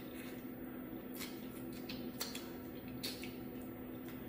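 Scattered light clicks and cracks of crab leg shell being handled and pried apart while eating, over a faint steady hum.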